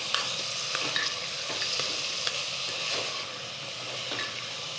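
Chopped onions sizzling in hot oil in a pressure cooker, being fried towards golden brown, while a steel ladle stirs them with irregular clicks and scrapes against the pot.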